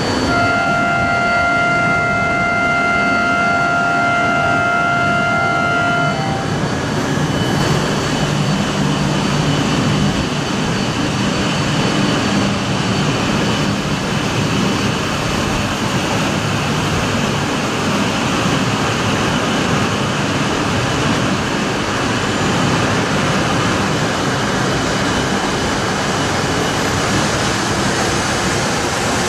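E5-series Shinkansen coupled to an E6-series set running past the platform at speed, a loud, steady rushing noise of wheels and air that lasts the whole time. For the first six seconds, a steady electronic tone of several notes sounds over it, then cuts off.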